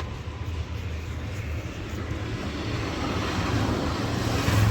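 Steady low vehicle rumble under a hiss of background noise, swelling slightly near the end.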